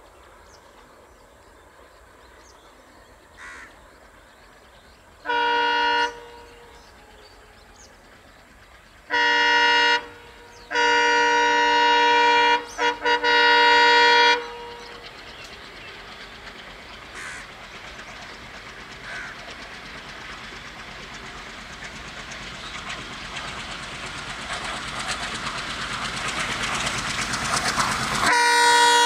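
An Indian Railways ALCo diesel locomotive's multi-note air horn sounds a short blast, another a few seconds later, then a long blast broken twice. After it, the approaching train's running noise grows steadily louder, and the horn sounds again just before the end.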